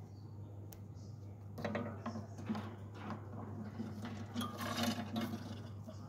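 Alexandrine parakeets moving about and nibbling in a wooden nest box: a run of scraping and clicking that starts about a second and a half in, over a steady low hum.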